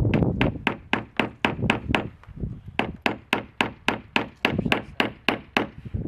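Hammer driving nails into plywood roof sheathing: quick, steady blows, about four a second. A low wind rumble on the microphone fades out about a second in.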